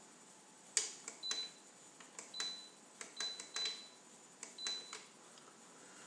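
Buttons on an Electrolux Eco Turbo washing machine's control panel being pressed: a run of sharp clicks, five of them answered by a short high beep.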